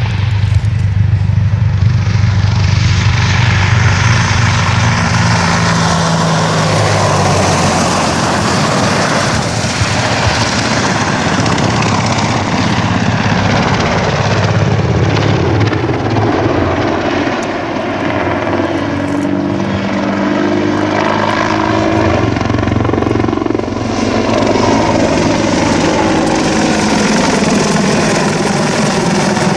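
AH-64 Apache attack helicopter flying low overhead, its main rotor and twin turboshaft engines loud and continuous. The sound shifts and sweeps in pitch as the helicopter passes and turns.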